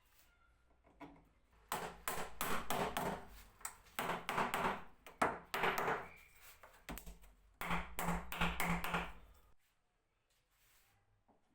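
Bursts of rapid tapping and knocking on wood, in about four runs, stopping a couple of seconds before the end.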